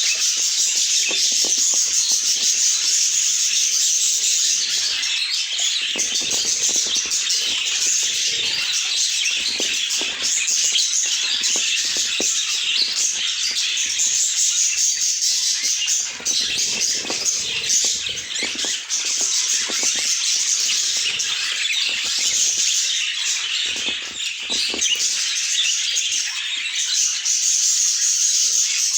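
Many budgerigars chattering and chirping together, a dense, continuous twittering.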